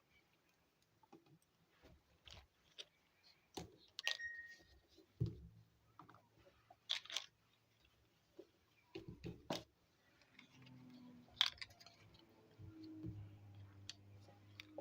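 Small plastic toy kitchen pieces being handled and set down: scattered light clicks and taps, a few of them louder. A faint low hum comes in about two-thirds of the way through.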